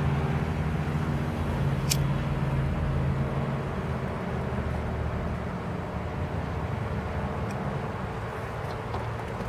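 Car engine idling, heard from inside the cabin as a low, steady hum that slowly fades a little. A single sharp click comes about two seconds in.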